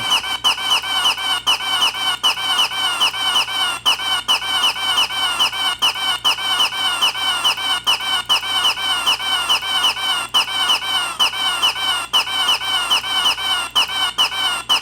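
A short, high, squeaky call repeated in a rapid, even loop, about four or five times a second, each with a quick hooked drop in pitch; it cuts off suddenly at the end.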